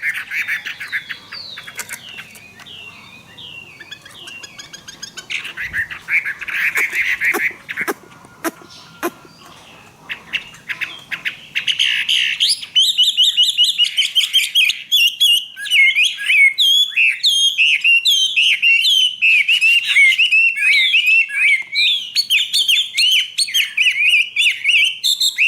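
Caged Chinese hwamei calling with harsh, rasping bursts, then, from about twelve seconds in, breaking into loud continuous song of rapid, varied whistled notes. A few sharp clicks come shortly before the song begins.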